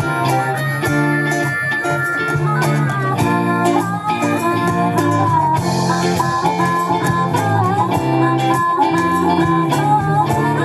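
Live rock band playing: electric guitars, bass guitar and a drum kit together, with a steady drum beat under the guitar lines.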